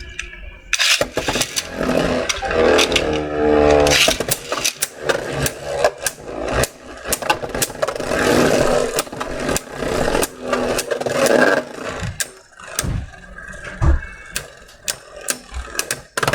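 Beyblade Burst spinning tops launched into a plastic stadium, whirring as they spin and clashing with many sharp clacks.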